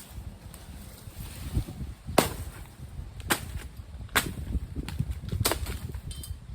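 Bolo knife chopping into overgrown brush, four sharp strikes about a second apart.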